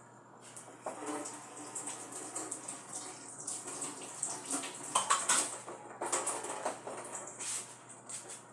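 Water running and splashing at a kitchen tap, with light clinks of pots or dishes.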